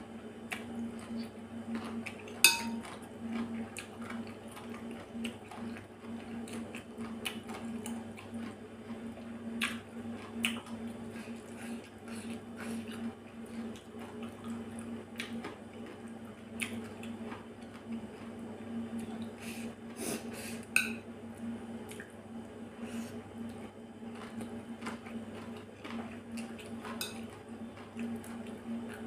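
Metal chopsticks clicking and scraping against a ceramic bowl, with the wet mouth sounds of slurping and chewing shredded carrot salad. Two louder ringing clinks stand out, one about two seconds in and one about two-thirds of the way through, over a steady low hum.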